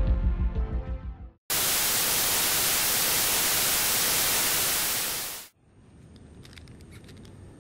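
Eerie music fading out, then about four seconds of loud, even TV-static hiss that cuts off suddenly. After it comes a much fainter background with a thin high whine and scattered light ticks.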